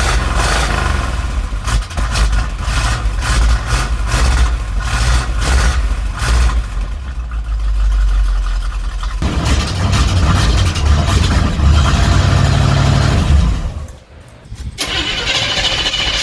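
1977 Chevrolet C10 Cheyenne's V8 starting and running through newly welded dual exhaust and mufflers, with an uneven beat that the owner reckons is it running on about seven cylinders. The sound drops away for about a second near the end, then comes back.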